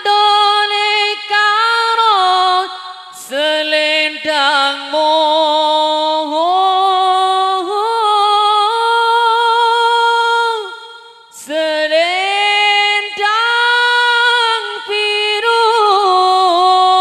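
A solo male voice singing unaccompanied through a microphone, drawing out long melismatic notes with a wavering vibrato, with short breaths about three and eleven seconds in.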